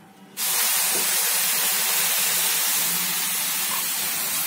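Water poured into a hot pan of dry-roasted semolina (sooji), hissing as it hits the hot grains and pan and turns to steam. The hiss starts suddenly about half a second in and stays steady.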